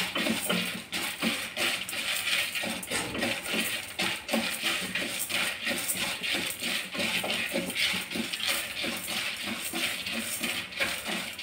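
Dry lentils and whole spices being stirred with a wooden spatula in a dry kadai as they roast: a steady rattling and scraping of hard grains against the pan.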